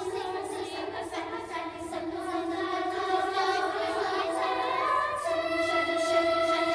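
Children's choir singing in several parts, holding long sustained notes and swelling steadily louder.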